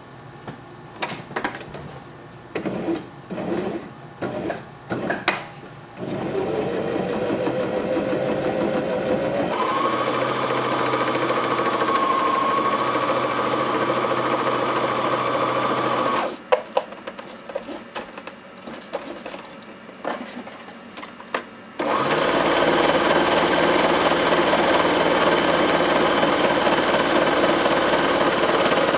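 Electric domestic sewing machine stitching a seam in two runs. After a few seconds of light clicks, the motor speeds up with a rising whine and runs steadily for about ten seconds. It stops for several seconds of scattered clicks, then runs steadily again.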